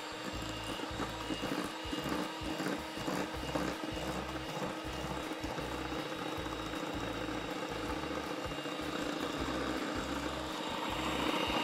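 Electric hand mixer running steadily with a constant whine, its beaters whisking oil into creamed eggs and sugar in a stainless steel bowl.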